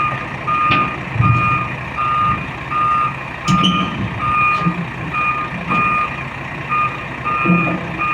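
Heavy-equipment reversing alarm beeping steadily about twice a second over a running diesel engine, with a couple of sharp metallic clanks.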